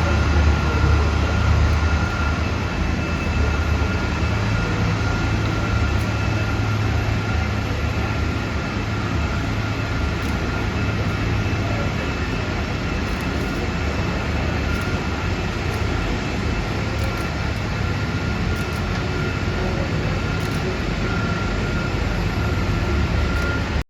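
Boeing 747 freighter's jet engines running steadily: a low rumble under a steady high whine. The sound cuts off suddenly at the end.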